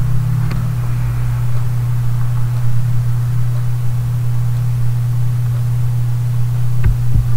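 A steady low hum with a faint hiss over it, with two soft low thumps near the end.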